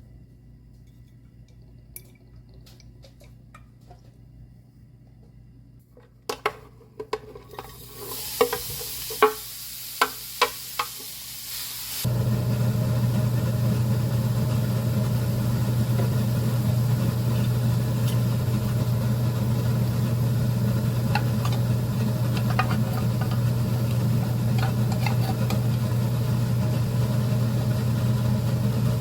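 Cooking in a pan: a few sharp clicks and knocks of utensils, then food sizzling. About twelve seconds in, a loud steady hiss with a low hum starts and keeps on.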